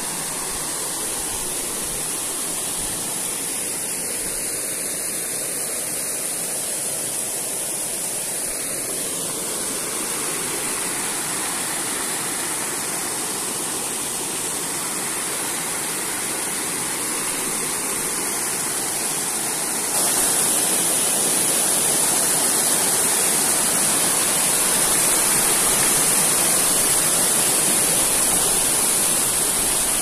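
Waterfall water rushing steadily, stepping up suddenly in loudness about twenty seconds in.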